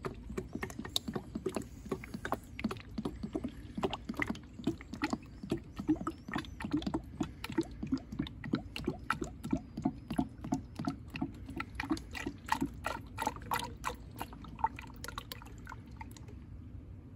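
Automatic transmission fluid pouring from a plastic jug into a long funnel, glugging in quick, uneven pulses about three times a second. The glugs stop near the end.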